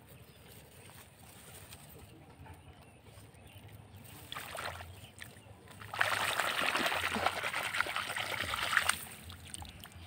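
A hand sloshing in shallow muddy water, with a brief splash about four and a half seconds in, then about three seconds of splashing and dripping as a plastic toy is pulled out of the water.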